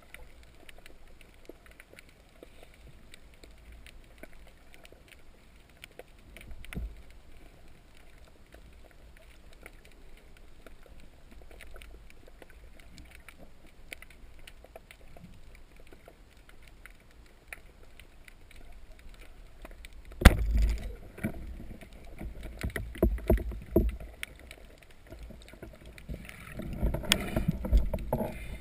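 Water sounds on a spearfisherman's camera: a low wash of moving water with scattered small clicks. From about twenty seconds in come louder, irregular splashes and knocks.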